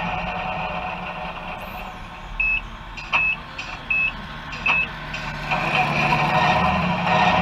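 Reversing beeper of a radio-controlled scale model truck: four short beeps at one pitch, about three-quarters of a second apart. Near the end comes a louder running noise as a model truck drives close past.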